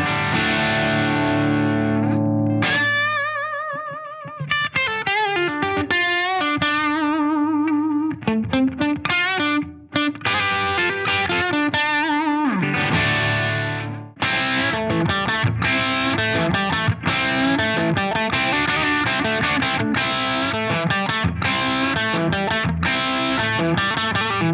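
Gibson electric guitar played through a distorted amp. It opens with held chords, then plays lead lines of single notes with bends and wide vibrato, and about halfway through turns to fast, dense riffing.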